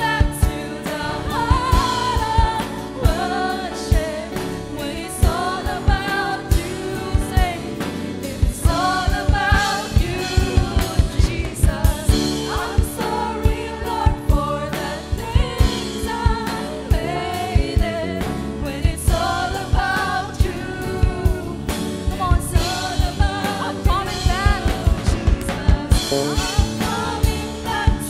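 Live worship band: a male lead singer singing into a handheld microphone over electric guitars and a steady drum beat.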